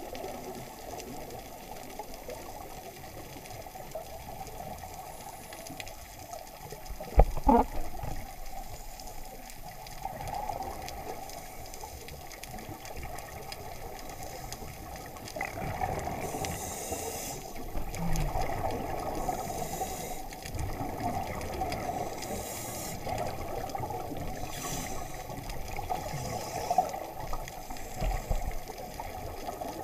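Muffled underwater noise through a camera's waterproof housing, with one loud knock about seven seconds in. From about halfway, scuba divers' bubbles hiss in short bursts every two to three seconds as they breathe out through their regulators.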